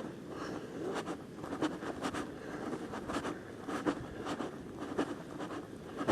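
Footsteps scuffing along a dirt hiking trail, about two steps a second, with clothing and gear rustling against the microphone.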